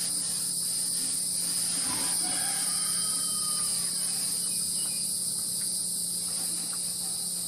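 A steady chorus of insects, a continuous high-pitched drone that does not break.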